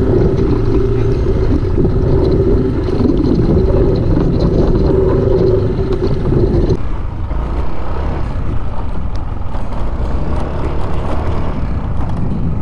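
Yamaha Aerox 155 scooter's single-cylinder engine running steadily, with road and wind noise. About seven seconds in, the engine note drops away suddenly, leaving a rumble with scattered knocks from the rough, stony road.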